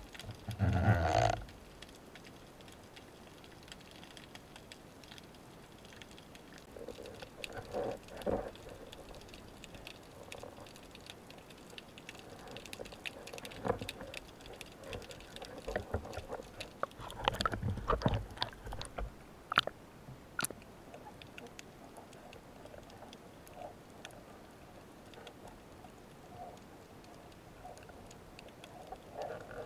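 Underwater handling noise from a speargun and its catch: scattered sharp clicks and knocks, with heavier thumps about a second in and again around 17 to 18 seconds in.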